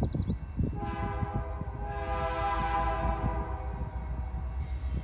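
Freight locomotive's multi-chime air horn sounding one long blast of nearly four seconds, starting about a second in, from an approaching train.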